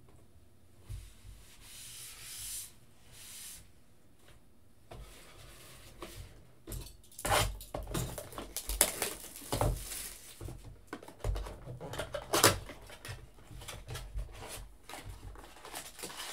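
Plastic shrink wrap crinkling and tearing as a sealed retail box of trading cards is unwrapped and opened. Cardboard is handled with scrapes and light knocks. It is soft at first and busiest in the second half.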